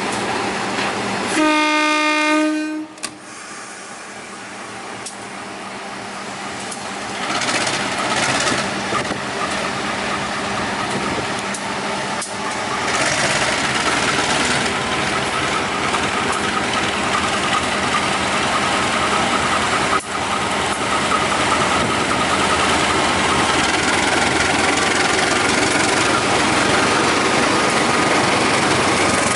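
Diesel-electric locomotive sounds one horn blast of about a second and a half near the start. Its engine noise then builds steadily and stays loud as it pulls the train out along the platform.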